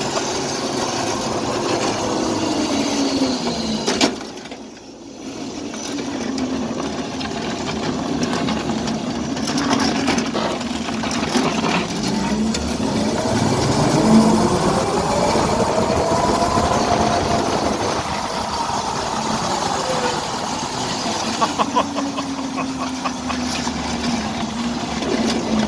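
Electric go-kart driven by a Motenergy ME1004 motor, running at speed. Its whine rises and falls in pitch as it speeds up and slows down, over road and wind noise. The sound briefly drops away about four seconds in.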